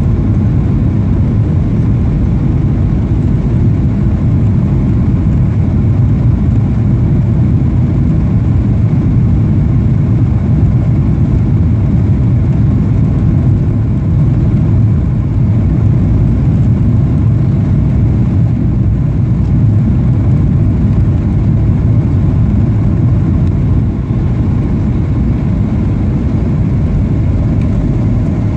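Steady low rumble of a Boeing 737's engines and airflow heard inside the passenger cabin during final approach.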